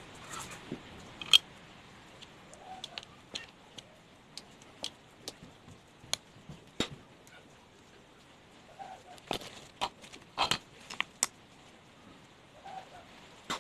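Irregular light clicks and taps of small metal parts and hand tools against a chainsaw during an oil pump replacement, a few sharper knocks among them.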